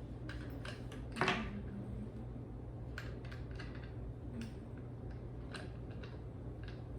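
Scattered light clicks and taps of cat-tree hardware being screwed and tightened by hand, with one louder knock about a second in, over a steady low hum.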